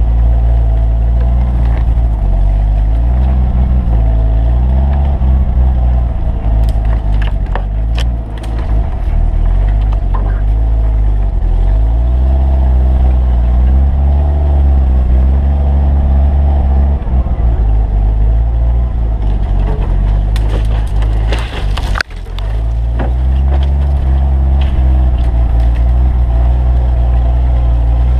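Off-road vehicle's engine running hard and rising and falling in pitch as it drives through snow, with branches snapping and scraping along the body in bursts about a quarter of the way in and again about three-quarters through. A hard knock comes about three-quarters through.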